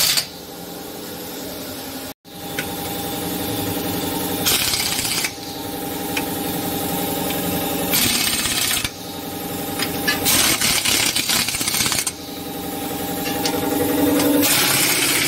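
Air-powered pneumatic impact wrench spinning wheel bolts onto a car wheel. Steady whine while spinning free, broken about four times by loud rapid hammering as each bolt seats and is tightened.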